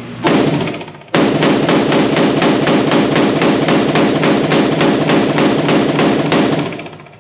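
Springfield Hellion 5.56 rifle firing: one shot about a quarter second in, then from about a second in a long, even string of rapid semi-automatic shots at about four a second, fading out near the end.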